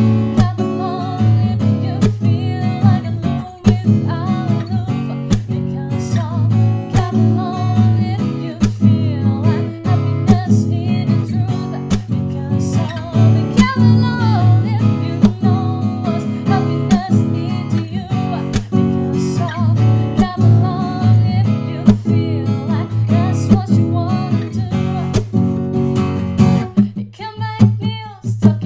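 Sqoe S200-FG acoustic guitar, a solid cedar top with black walnut back and sides, being played: chords strummed in a steady rhythm with ringing notes between the strokes.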